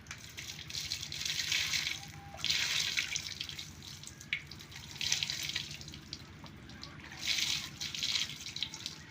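Water gushing and splashing in about four spurts of a second or so each, like water from a tap or hose being run and stopped.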